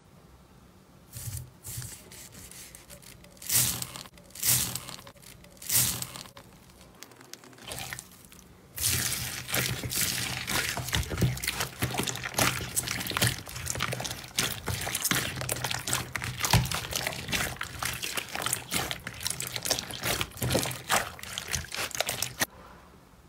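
Slime being squeezed and worked by hand, sounding wet and sticky: a few separate squishes at first, then about nine seconds in a dense run of crackling and small pops that goes on until near the end.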